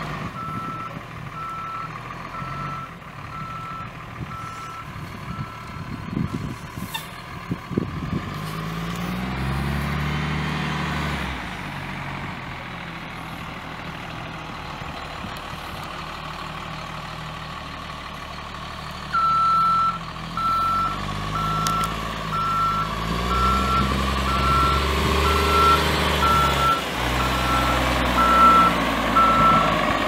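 Blue Bird LTC40 bus's Cummins ISM 10.8-litre inline-six turbo diesel running, its engine speed rising and falling twice, with the bus's backup alarm beeping about once a second for the first few seconds and again, louder, from about two-thirds of the way in to the end.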